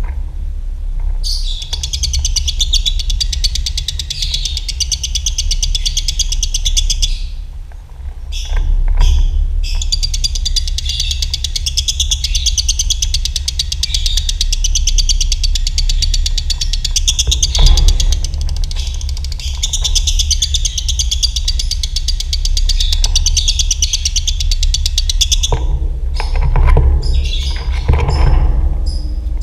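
Lovebird singing long, very fast rattling trills (ngekek) in the dobelan style, in two long unbroken runs with a short break between them, then short separate chirps near the end. A steady low hum lies beneath.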